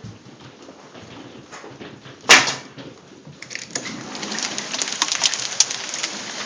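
Hailstones falling and ticking on the ground and a trampoline, with one loud sharp hit about two seconds in. From about halfway through the hail falls harder, a dense, louder clatter of many small hits.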